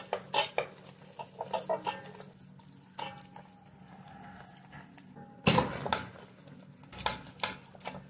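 A wooden spoon stirring and knocking in an aluminium pan of sauce while meat broth is poured in from a metal pot, with pots clinking against each other. A loud metal clank comes about five and a half seconds in, and more knocks about seven seconds in.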